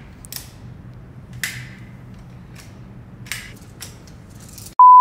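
Scattered metallic clicks and scrapes as the slide of a Laugo Alien pistol is worked against a full magazine: the first round is very stiff to rack. Near the end comes a short, loud censor bleep.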